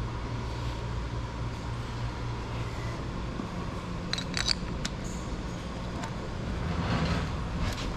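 Steady low hum in the background, with a short cluster of sharp metallic clicks about four seconds in, from hand tools being worked on the motorcycle's exhaust parts.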